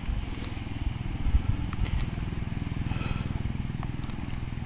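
A small engine running steadily with an even, rapid pulse, with a few faint light clicks over it.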